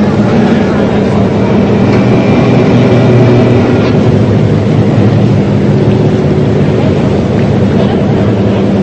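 A boat's engine running steadily, a low hum under a rushing wash of water.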